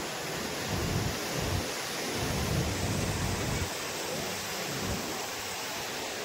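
Surf breaking on a sandy beach, a steady rush, with wind buffeting the microphone in irregular low rumbling gusts.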